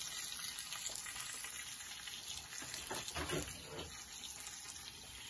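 Steady bubbling hiss of a pot of basmati rice and green peas at a full boil on a gas burner, with the rice now cooked through.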